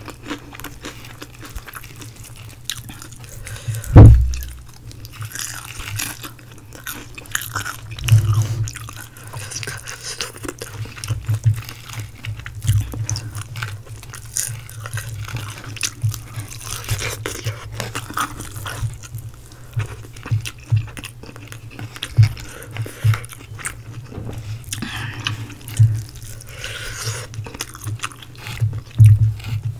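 Close-miked eating of fried chicken: bites into the crispy breading and chewing, with many short irregular crunches and crackles. A loud low thump about four seconds in.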